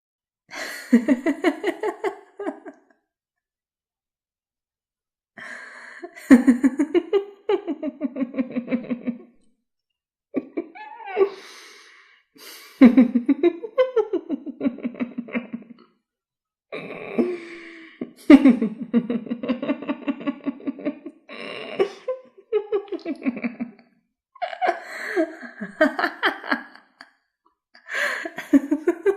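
A string of separate recorded laughs played one after another as sound effects, with short dead-silent gaps between them. Each laugh is a run of quick 'ha-ha' pulses that mostly slides down in pitch.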